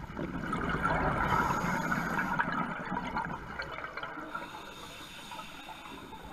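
Scuba diver exhaling through a regulator underwater: a bubbling rush that swells for about two to three seconds and then fades.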